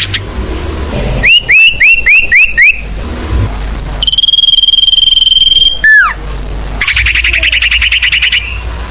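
Recorded song of the sirfu, a small songbird, played as a bird lure. First comes a quick series of about six rising whistled notes, then a long steady whistle, a single falling note, and near the end a fast buzzy trill.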